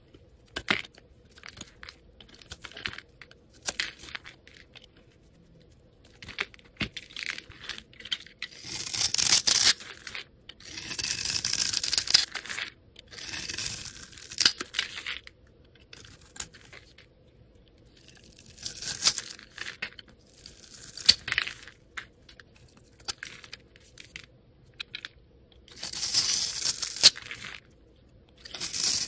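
Metal blades scraping and cutting across bars of soap, shaving off flakes and small cubes. The strokes come again and again, each from a moment to about two seconds long, with short pauses between.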